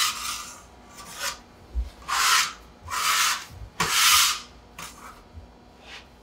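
Metal bench scraper scraping flour and dough bits across a floured wooden tabletop in about six short strokes, the loudest three in the middle.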